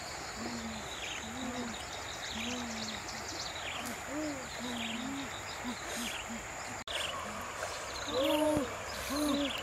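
Low hooting animal calls repeating at uneven intervals over the hiss of river water, with high descending chirps about once a second and a steady high-pitched whine.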